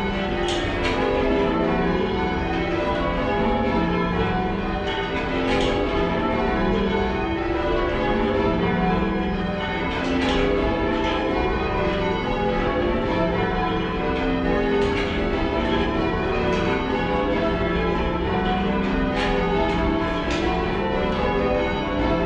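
A light ring of ten church bells rung in changes, heard from the ringing room below, where they sound slightly mushy: a steady, unbroken stream of overlapping bell strikes, with an occasional sharp click.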